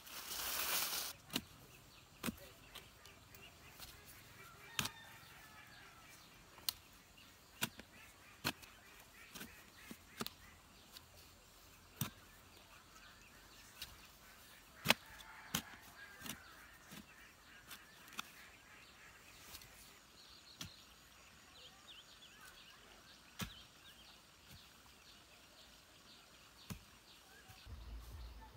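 A hoe scraping and chopping into dirt in the first second, then scattered sharp knocks and clicks a second or more apart, with faint bird calls in the background.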